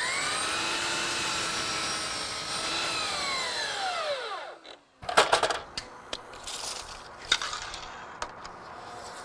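DeWalt sliding compound miter saw running at full speed through a crosscut in a board, then its motor winding down to a stop about four seconds in. A few knocks and rattles follow, with lighter clicks after them.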